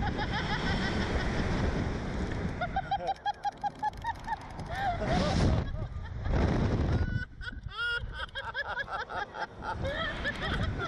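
A man and a woman laughing and shrieking on a Slingshot reverse-bungee ride, in rapid choppy bursts and short high squeals. Wind rushes over the on-ride camera's microphone, with two loud gusts about halfway through.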